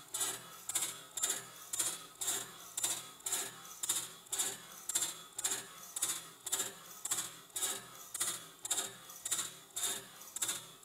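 Crankshaft-driven mechanical lubricator on a Stuart 5A model steam engine, its ratchet and pawl clicking steadily about twice a second. Each click is one revolution of the crankshaft advancing the oil pump: a sign that the pump is now indexing properly.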